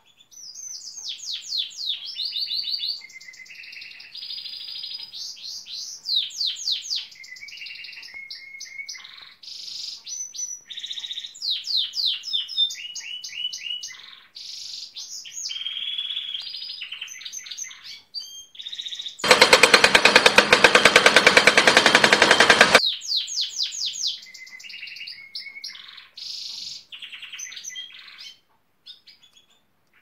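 Gloster canary singing a long run of fast trills and rapid sweeping notes, phrase after phrase. Around two-thirds of the way through, a much louder, very rapid rattle lasts about three and a half seconds, the pneumatic-drill sound the canary is said to imitate, before the trilling song resumes.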